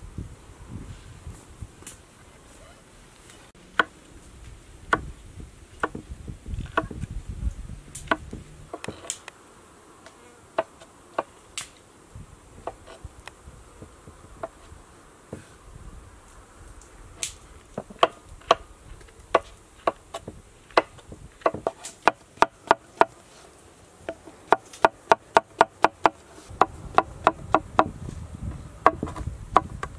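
Kitchen knife slicing button mushrooms on a wooden cutting board: sharp knocks of the blade hitting the board, a few spaced ones at first, then a quick run of about four or five a second in the second half. A low buzz underlies the start and the end.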